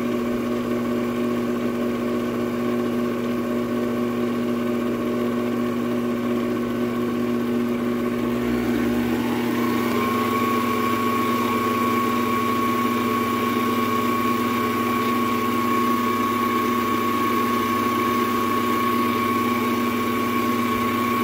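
Electric mixer motor running steadily on its lowest speed, beating a thick slime mixture. About eight seconds in, a whine rises in pitch and then holds steady.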